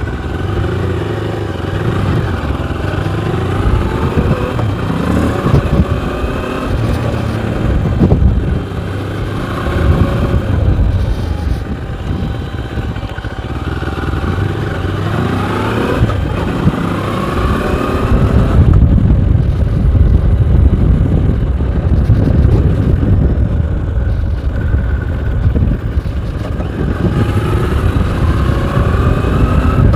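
Moto Morini X-Cape 650 parallel-twin engine under way, its pitch rising again and again as it accelerates through the gears and dropping at each shift, over heavy wind rumble on the microphone.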